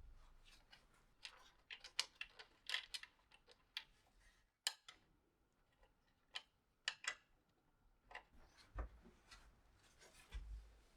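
Faint sounds of a delivered parcel being handled and unpacked: an irregular run of small clicks, taps and rustles, with two soft low thumps near the end.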